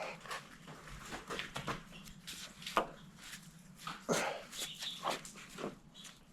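A dog making small noises close by, among irregular light clicks and scrapes.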